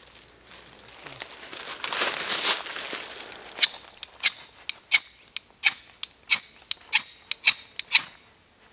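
Ferrocerium rod scraped with a knife spine to throw sparks onto tinder atop a Swedish torch log: one longer, louder scrape about a second or two in, then a quick run of a dozen or so short, sharp strikes, two to three a second.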